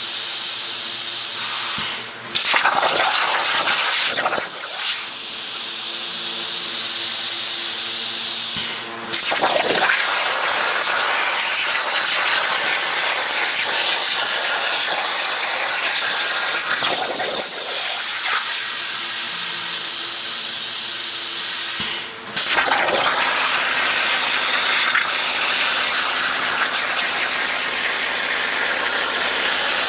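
CNC plasma cutter's torch hissing steadily as it cuts metal. The arc stops briefly and restarts a few times between cuts.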